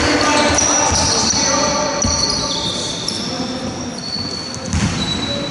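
Basketball bouncing on a hardwood gym floor, with high squeaks and players' voices echoing in a large hall.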